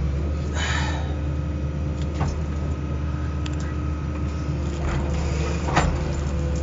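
CAT 320B L excavator's diesel engine running steadily, heard from inside the cab, with a steady hydraulic whine over it. A few short knocks and crackles break in, the sharpest near the end.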